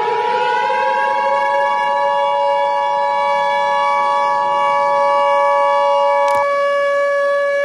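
A siren finishes rising in pitch and holds a steady wail. Over it sounds the two-tone Emergency Alert System attention signal, which cuts off sharply about six seconds in.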